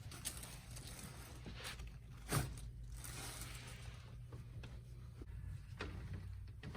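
Soft rustling of clothing and table covering during a chiropractic adjustment, with one sharp crack about two and a half seconds in, over a low steady hum.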